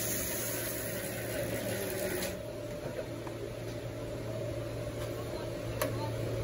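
Steady electric hum of a Matsui plastic hopper dryer and its blower. For about the first two seconds a hiss, the last green plastic granules pouring into the hopper, rides over it, then fades away. A sharp click comes near the end.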